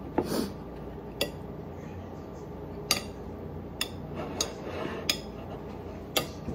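Metal spoon clinking and scraping against a ceramic plate while scooping up fried rice: about seven short, sharp clinks at uneven intervals.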